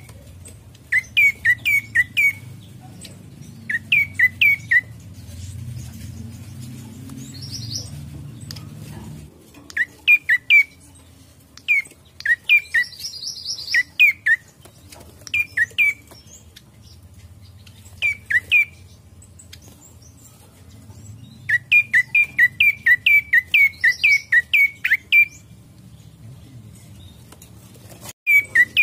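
Caged prenjak coki singing: short bursts of sharp, downward-slurred chirps, three to five at a time, with a fast run of about a dozen chirps about three-quarters of the way through.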